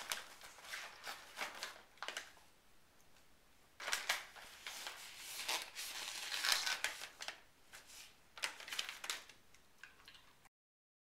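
Plastic treat bag crinkling and rustling in bursts as a Shiba Inu noses, bites and paws at it, quieter for a moment about two seconds in and loudest around six to seven seconds; the sound cuts off suddenly near the end.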